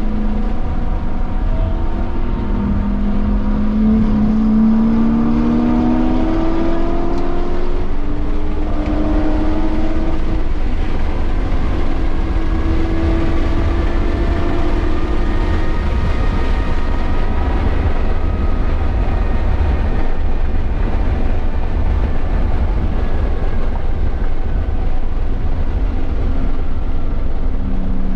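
BMW M240i's turbocharged inline-six running hard at speed on track. Its note rises in pitch over the first few seconds, then rises again several times through the middle, over a constant heavy low rumble of wind and road noise.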